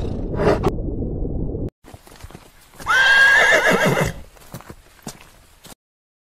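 A horse whinnying: one loud, high neigh of about a second with a wavering pitch, followed by a few sharp hoof clicks. Before it, a low steady noise stops abruptly.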